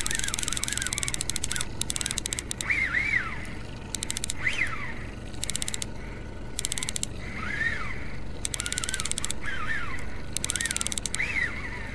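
Birds calling: a string of short calls that rise and fall in pitch, over repeated spells of fast, even clicking.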